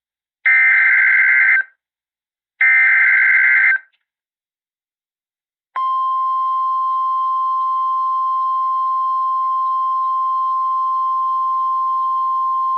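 Emergency Alert System alert on NOAA Weather Radio: two short buzzing SAME digital header bursts about a second apart, then after a two-second pause the steady single-pitch warning alarm tone starts about six seconds in. It marks the start of a tornado warning broadcast.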